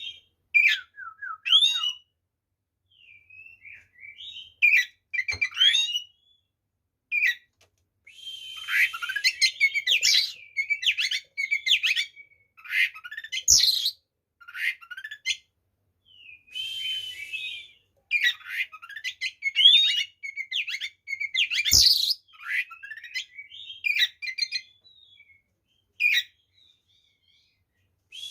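Oriental magpie-robin (kacer) in full song: rapid phrases of varied whistles, chirps and trills that glide up and down, broken by short pauses between phrases.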